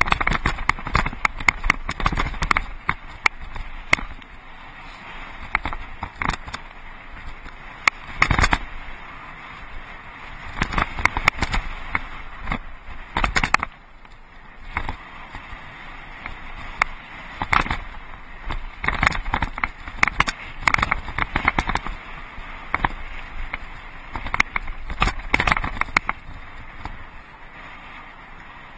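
Mountain bike rattling and clattering over a rocky dirt trail, with irregular knocks and jolts from the bumps and tyres crunching on gravel.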